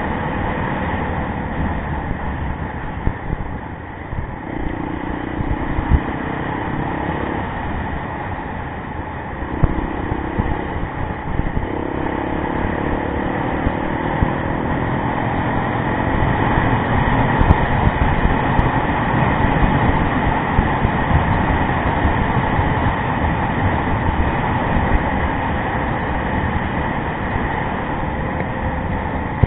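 Yamaha rally motorcycle engine running as it is ridden, its pitch rising and falling with the throttle over a rough, steady rumble of wind and riding noise.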